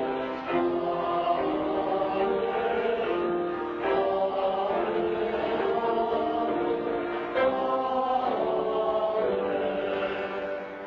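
A small group of singers singing a slow hymn in long held notes, fading near the end.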